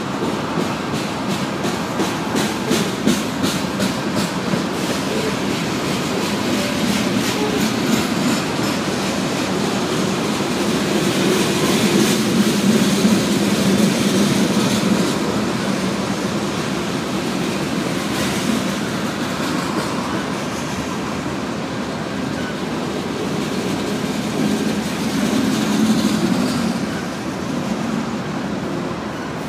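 Loaded grain hopper cars of a freight train rolling past: a steady rumble of steel wheels on rail, with a run of rhythmic wheel clicks during the first five seconds or so.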